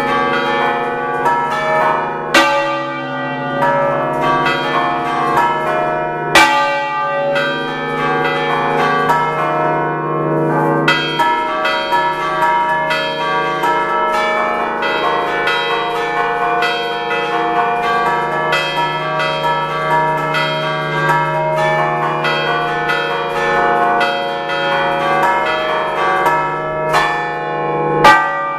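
A six-bell concerto of church bells tuned in D, rung by hand in the Ligurian 'a ducale' style: a dense, continuous run of strikes from several bells overlapping and ringing on, with a loud stroke near the end.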